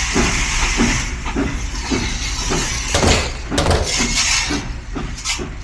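Steam train sound effect chugging in an even rhythm of about three beats a second, with a steam hiss in the first second and clattering, clinking knocks around the middle.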